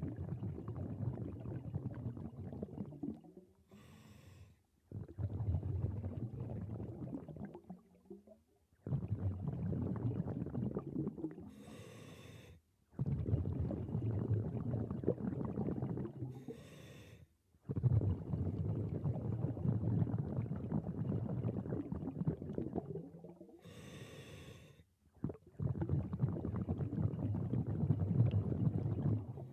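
Scuba diver breathing through a regulator underwater, about five breaths. Each breath has a short sharp hiss on the inhale, then a long bubbling rush of exhaled air.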